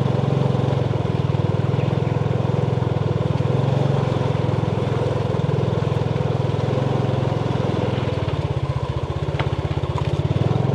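Small motorbike engine running steadily under way, easing off about eight seconds in and picking up again near the end.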